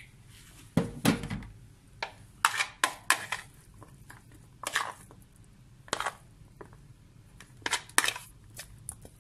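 Kitchen utensils knocking: a spoon and a plastic food container clinking and tapping in a series of short, sharp clicks and knocks at irregular intervals, the loudest about a second in and near the end.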